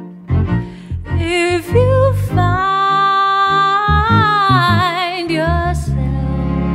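String ensemble music from cellos, viola and violin with bass, including a long held note with vibrato from about two and a half seconds in until nearly six seconds.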